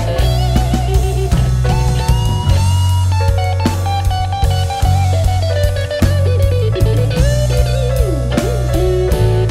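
Slow blues band playing an instrumental passage with no vocals: electric bass and drums under a lead electric guitar line of wavering, bent notes, with a deep bend near the end.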